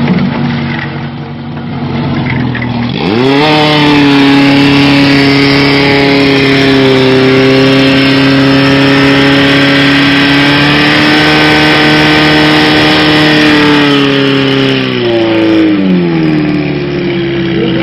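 Portable fire pump engine idling, then revved up hard about three seconds in and held at high speed for about eleven seconds, dropping back toward idle near the end and picking up again at the very end.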